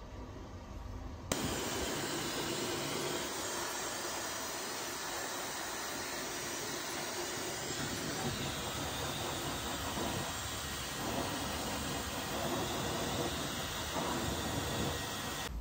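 Hand-held hair dryer blowing, drying wet hair: it switches on suddenly about a second in and gives a steady rush of air until it cuts off near the end.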